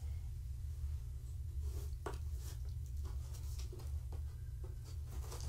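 Faint scratchy rustles and scattered soft clicks, typical of a handheld camera being moved and handled close to the cat, over a steady low hum.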